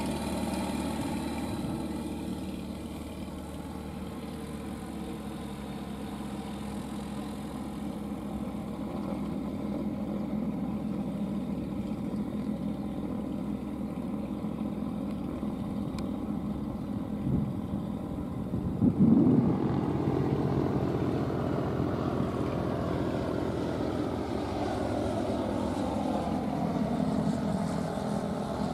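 Light-aircraft piston engine and propeller running at taxi power, slowly fading as the FK9 ultralight moves away. A short loud burst of noise comes about two-thirds of the way through. After it, a second aircraft engine grows louder and rises in pitch near the end.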